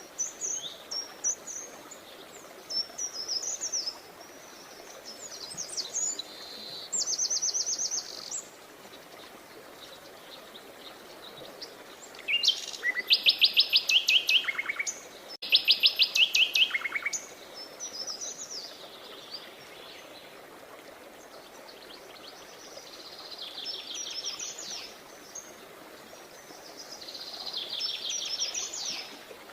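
Songbirds singing: a series of short chirping phrases and trills of rapid repeated high notes, the two loudest trills coming back to back around the middle. A faint steady hiss of outdoor background lies underneath.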